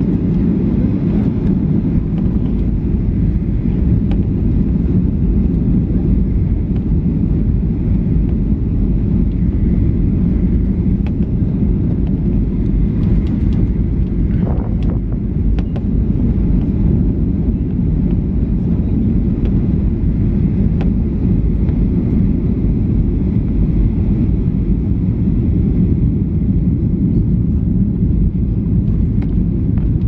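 Steady low rumble of cabin noise inside a Boeing 737-800 on approach, the CFM56 engines and the airflow over the fuselage heard from a window seat.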